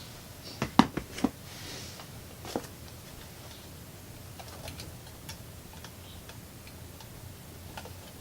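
A quick cluster of sharp clicks about a second in, another click about two and a half seconds in, then scattered faint ticks: small hand-tool work at a RainMachine Mini-8 controller's push-in terminal block, a flathead screwdriver pressing the wire locks as sprinkler wires are pushed in.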